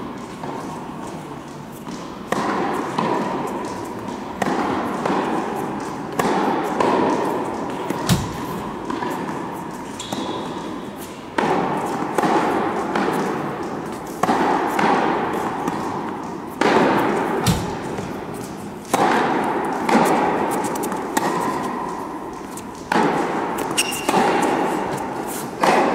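Tennis ball struck by rackets and bouncing on an indoor hard court, a sharp hit every second or two, each echoing long in a large indoor hall.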